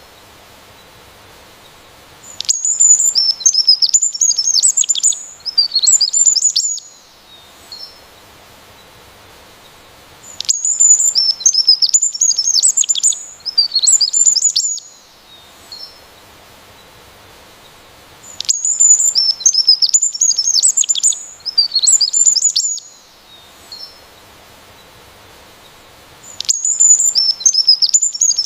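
A songbird singing in bouts of rapid, high twittering and warbling notes. Each bout lasts about four seconds, with a pause of about four seconds before the next.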